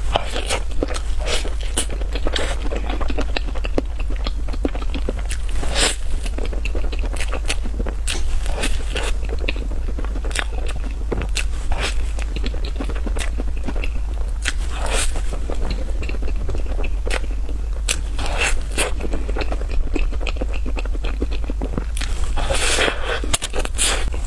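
Close-miked eating of strawberry crepe cake: chewing with irregular wet mouth clicks and smacks, over a steady low hum.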